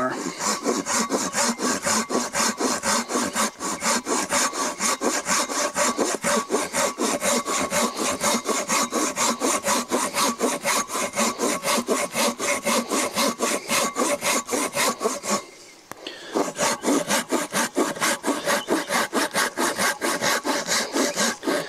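Hand saw with a curved blade cutting across a split log half, with quick, even back-and-forth strokes of several a second. The sawing stops briefly about three-quarters of the way through, then resumes.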